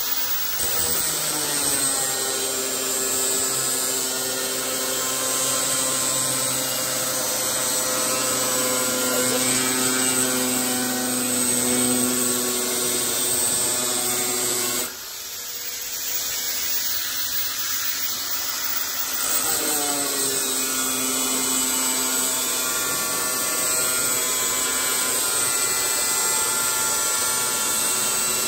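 Electric angle grinder cutting a metal sheet with an abrasive disc: a steady high whine over a hissing scrape, easing off briefly about halfway through before the cut goes on.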